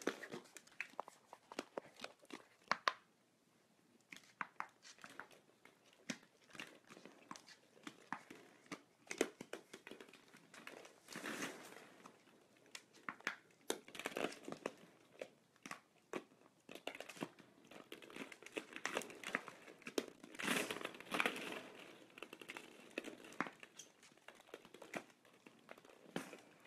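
Hollow plastic ball-pit balls clicking, knocking together and clattering on a hardwood floor as a fox terrier puppy plays among them. The knocks come irregularly, with denser rattling flurries a few times.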